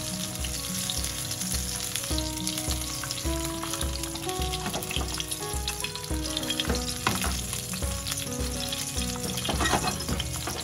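Red sea bream fillet sizzling steadily in hot oil in a frying pan as it pan-fries.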